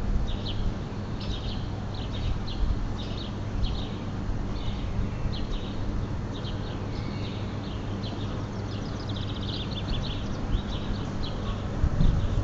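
Small birds chirping in quick clusters of short high notes, over a steady low hum; a couple of low bumps near the end.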